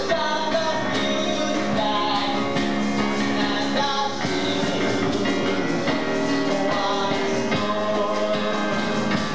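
Live stage-show music: sustained notes and chords changing about every second, through a room recording.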